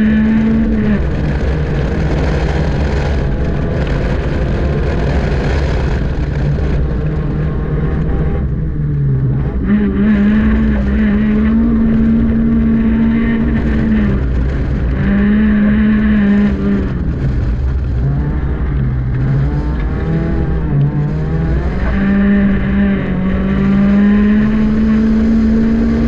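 Honda Civic engine heard from inside the cabin on an autocross run, revving hard and holding high revs for seconds at a time. Several times it drops in pitch and climbs again as the driver shifts and brakes for corners.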